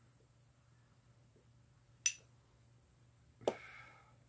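A single sharp metallic click of a lighter about two seconds in, then a breathy puff as pipe smoke is blown out, over a faint steady low hum.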